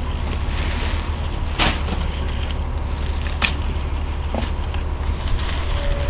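Steady low rumble of wind buffeting the microphone, with two sharp clicks, one about a second and a half in and one just past the middle.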